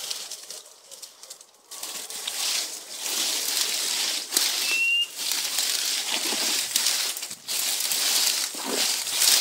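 Brush, brambles and dry leaves rustling and crackling as someone pushes through dense undergrowth, starting after a quieter first couple of seconds. About five seconds in, one short high chirp sounds.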